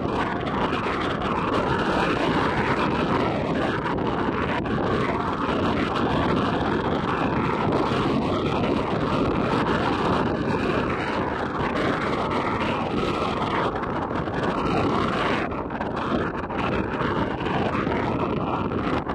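Steady wind buffeting the microphone, a continuous rushing noise with a gently rising and falling level.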